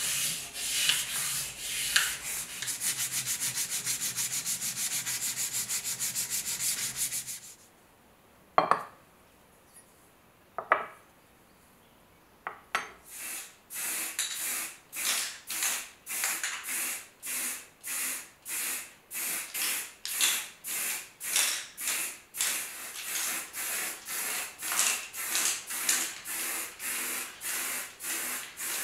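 Rapid back-and-forth hand sanding of a curved metal strip held in a vise. After a pause, an aerosol spray-paint can sprays in short regular bursts, about two a second, painting an aluminium compass part black.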